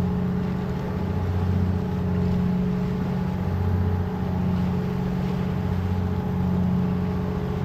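Engine of a motorized outrigger boat running steadily under way, a low hum that swells and fades every second or two.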